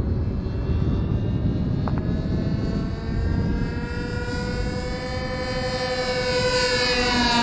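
Twin-engine light propeller aircraft flying by, its engines and propellers making a steady pitched drone over a low rumble. The drone grows louder, then its pitch drops near the end as the plane passes.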